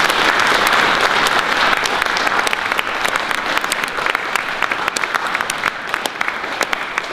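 Audience applauding, many hands clapping together, the applause slowly thinning out and fading toward the end.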